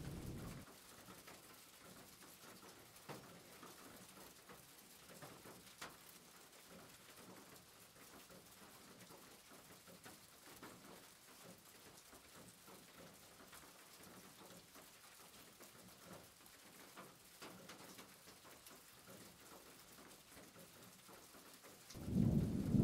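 Faint scraping and light clicks of a table knife spreading butter on crustless toast slices and a spoon working a bowl of chicken filling, over near silence. A loud low rumble cuts in near the end.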